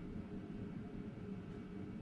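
Steady low background rumble and hiss with no distinct events: room tone.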